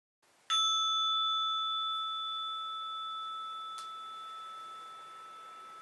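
Orin, a Japanese Buddhist bowl bell, struck once about half a second in and ringing on with a slow fade, holding a lower tone and a brighter upper one. A faint tick is heard a little past the middle.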